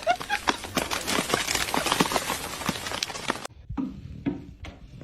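A dog's paws clattering quickly and irregularly on a hard floor as it runs. The clatter cuts off suddenly about three and a half seconds in, leaving a few scattered knocks.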